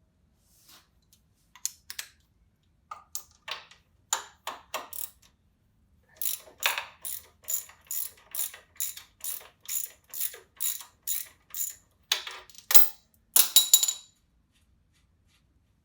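Hand ratchet wrench clicking as it works a shock mounting bolt loose: a few irregular strokes, then a steady run of about two clicks a second, then a quick flurry of clicks near the end.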